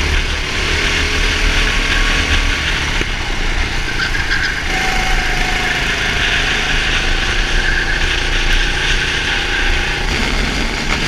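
Go-kart engine running at speed under the driver, heard from a helmet camera, with steady wind rush over the microphone.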